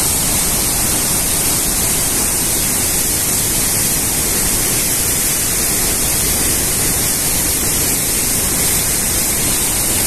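Davis Falls, a waterfall plunging into a narrow rock gorge: a loud, steady rush of water.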